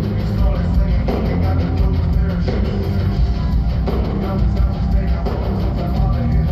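Hard-rock band playing live through an arena's PA, with drum kit, electric guitars and vocals, loud and bass-heavy as heard from high in the stands.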